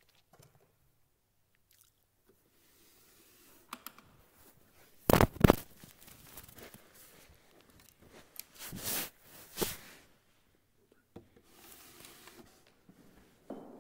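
Handling noises close to the microphone: a few short rustling scrapes, the loudest pair about five seconds in and another cluster around nine seconds, separated by quiet room tone.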